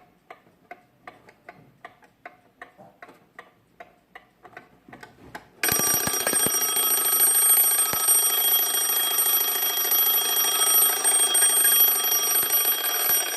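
Pfeilkreuz c1910 castle-style alarm clock: light, even clicks about three or four a second. Then, about five and a half seconds in, its alarm bell goes off with a loud, continuous ringing that lasts about eight seconds and cuts off suddenly.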